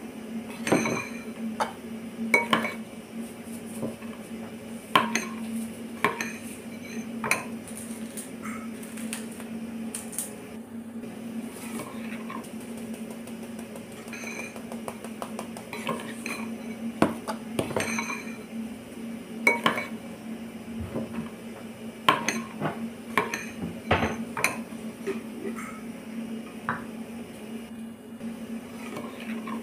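Kitchen clatter: irregular clinks and taps of a spoon and dishes, a few a second at most, over a steady low hum.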